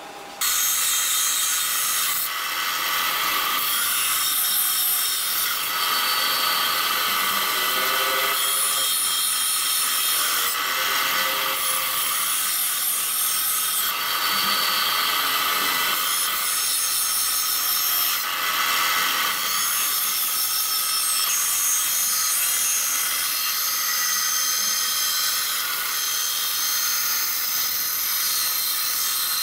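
Benchtop band saw running and cutting through a strip of wood: a steady high-pitched saw noise that starts abruptly about half a second in.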